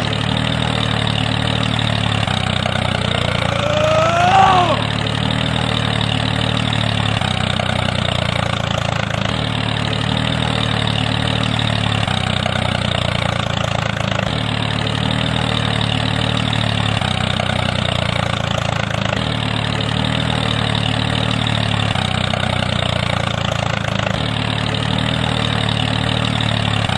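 A tractor-style engine running steadily at an even, idle-like pace. A short rising whistle-like sound is heard about four seconds in.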